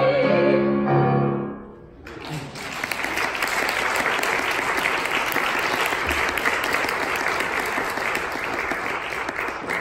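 A vocal quartet and piano end on a held final chord that dies away about a second and a half in, then the audience breaks into steady applause.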